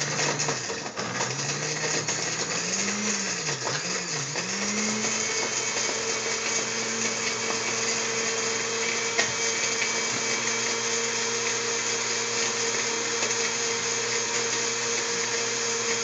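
Countertop blender running, churning soda, cherries, chocolate and candy. Its motor pitch dips and rises a few times in the first few seconds, then holds steady.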